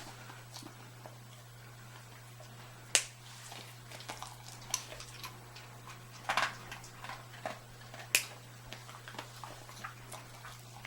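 Hard dried sweet potato dog chews cracking, with three sharp snaps and many small clicks and crunches, over a low steady hum.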